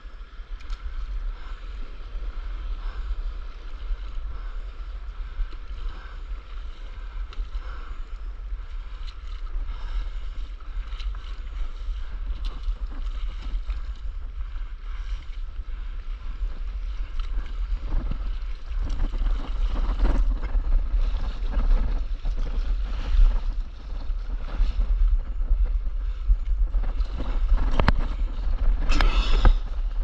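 Wind noise on the microphone over water lapping and splashing against a stand-up paddleboard. The splashing grows louder and busier about two-thirds of the way through, with a burst of spray near the end.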